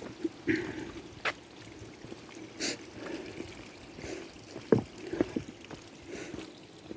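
Footsteps crossing a footbridge: scattered, irregular knocks and scuffs over a faint, steady trickling hiss.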